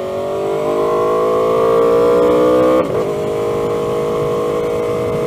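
2015 Aprilia Tuono V4's V4 engine through a GPR Thunderslash exhaust, revs rising steadily under acceleration. About three seconds in the note breaks sharply for an upshift, and the engine then pulls on steadier at lower revs.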